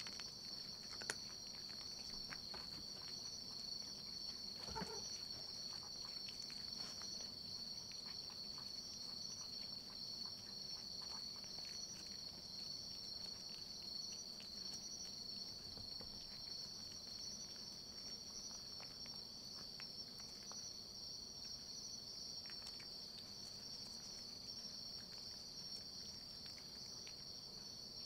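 Crickets trilling steadily in two high pitches, with a few faint clicks and a brief low sound about five seconds in.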